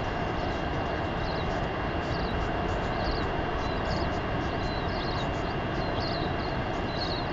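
Steady background noise, an even rumbling hiss, with many short high chirps scattered throughout.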